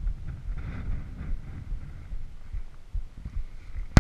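Wind buffeting an action camera's microphone in uneven low gusts, with a single sharp knock near the end as the camera is handled.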